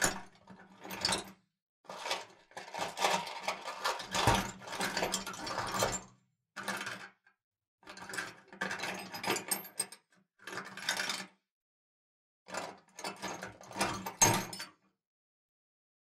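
A metal toolbox being handled, the tools inside clinking and clattering. The sound comes in a series of separate takes of about one to four seconds each, with dead silence between them.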